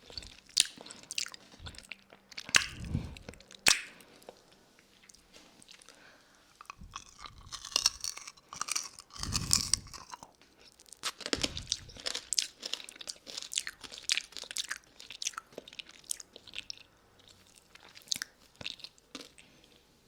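Close-up wet mouth sounds of a lollipop being sucked and licked, with many sharp clicks and smacks, picked up by a 3Dio binaural microphone.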